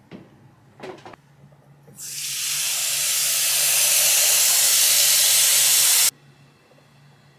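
Espresso machine steam wand hissing steadily for about four seconds, building at the start and cutting off suddenly as the valve is shut. Two light knocks come before it.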